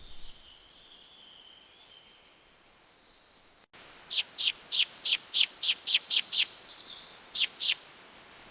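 Bird calling: a faint, thin, wavering whistle, then a run of about nine loud, sharp, high notes at about four a second, followed by two more.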